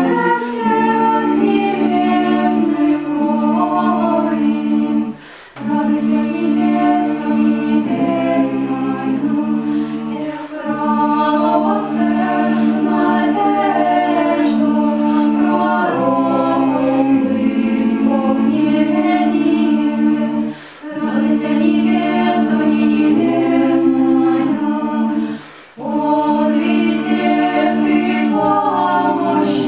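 Small mixed vocal ensemble singing a hymn to the Mother of God a cappella, in sustained chords, with brief breaks between phrases about five, twenty-one and twenty-six seconds in.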